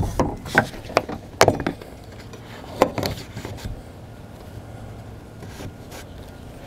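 Plastic trim stick and belt molding puller working at a car door's outer belt molding: a run of sharp clicks and taps with some scraping, quieter after about three seconds.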